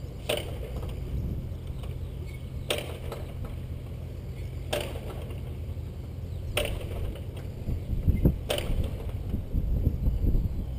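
Menasco engine of a Ryan STM being hand-propped without catching: a sharp click each time the propeller is swung, five times about two seconds apart, over a low rumble that grows louder and more uneven near the end.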